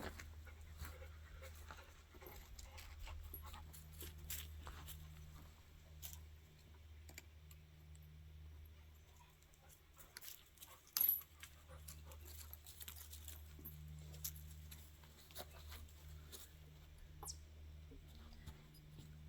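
A dog close by, faint, over a low steady hum, with scattered small clicks and one sharp, louder click about eleven seconds in.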